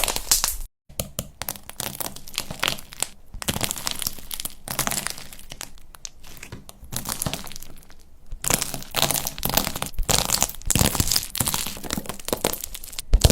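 Dense, irregular crackling and crunching as a crumbly material is squeezed and broken by hand, with a short break about a second in and a louder knock near the end.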